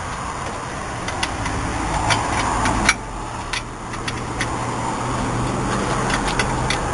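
Wrench working a brake-line fitting at a disc brake caliper: a few sharp metallic clicks and scrapes over a steady low hum and noise.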